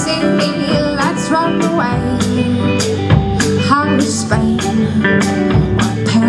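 Live rock band playing: electric and hollow-body guitars over a drum kit keeping a steady beat, with cymbal strokes about twice a second.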